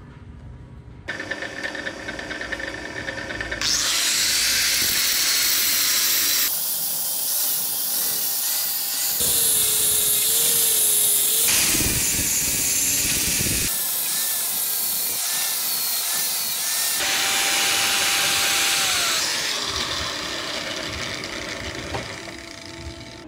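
A drill press starts up and spins a steel part in its chuck while a hand-held grinder presses against it from about four seconds in, a loud grinding that shapes the part's domed head, its pitch dipping as the wheel bites. The grinding eases off over the last few seconds.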